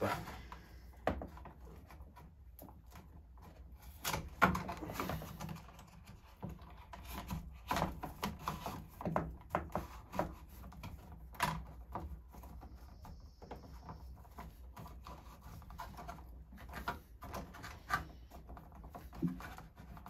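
Scattered irregular clicks, taps and rustles as plastic-sheathed electrical cable is bent by hand and fed into a plastic double-gang switch box.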